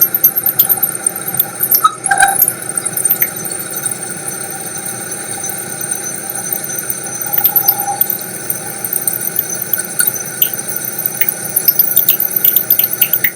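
Milling machine cutting aluminium U-channel with an old, dull end mill: a steady high-pitched squeal over the running spindle, with many short clicks and ticks scattered throughout.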